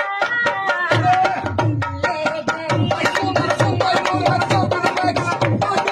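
Background music with a steady tabla rhythm under a melody.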